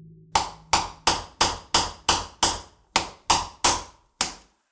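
A hammer striking a steel bearing-driver tool in an even run of sharp metallic taps, about three a second, driving a new spindle bearing into a riding mower deck's spindle housing by its outer ring.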